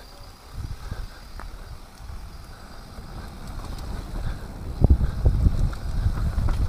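Mountain bike rolling fast down a dirt singletrack: low tyre rumble and wind buffeting the camera microphone, with knocks and rattles from the bike over bumps, growing louder about five seconds in.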